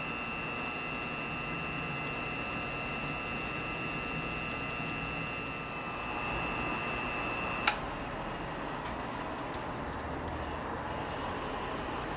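Wood lathe running steadily, spinning a pen blank on its mandrel while it is hand-sanded and polished, with a high steady whine. A single click comes about three-quarters of the way through, after which the whine stops and the running hiss goes on.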